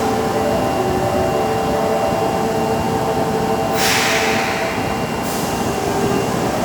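Osaka Metro Tanimachi Line 22 series subway train with a steady, several-toned electrical hum, and a burst of compressed-air hiss about four seconds in that lasts about a second and a half.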